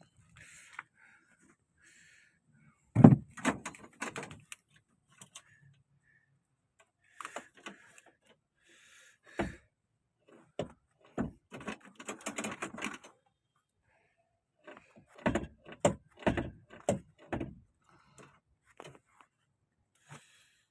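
Irregular knocks, clunks and rattles of tools and metal parts being handled. There is a heavy knock about three seconds in, scattered clatter after it, and a run of several knocks near the end.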